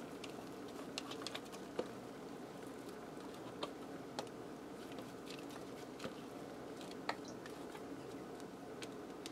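A spoon scraping mashed potatoes out of a stainless steel saucepan: faint, irregular light clicks and taps of the utensil against the metal pan.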